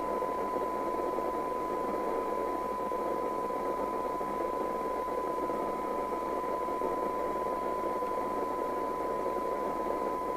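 A steady single test tone with hiss over it, coming from the Midland 4001 FM CB receiver's loudspeaker. This is the signal generator's test modulation being received during receive alignment, with the volume turned up for a SINAD sensitivity reading.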